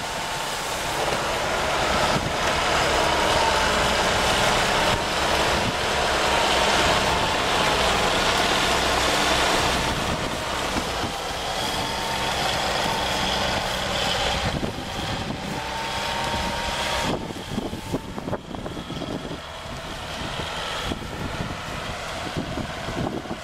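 A UAZ off-roader's engine running under heavy load as it churns through a waterlogged reed marsh, its pitch rising and falling with the throttle. It is loudest for the first ten seconds and eases off after about 17 seconds.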